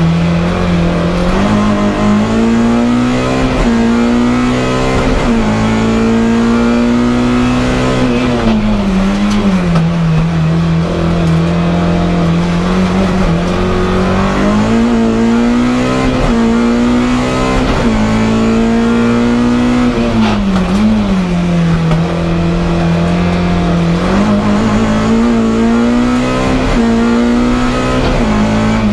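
Race car's engine heard from inside the stripped cabin, its pitch rising and falling again and again every few seconds as the car accelerates and slows through slalom chicanes.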